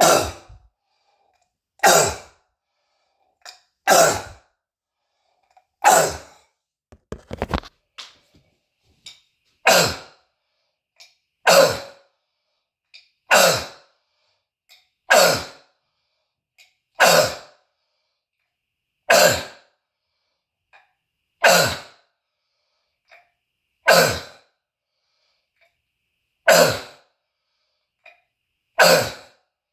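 A man's harsh croup cough, repeated about every two seconds: each cough is a single sharp burst that echoes off the walls, with a few smaller coughs in a quick cluster about seven seconds in. The cough comes from croup and bronchitis, and sounds almost like screaming.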